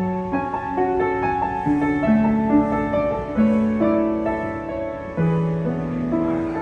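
Yamaha W106B upright piano being played: a melody of held notes over sustained chords, the notes ringing on and overlapping.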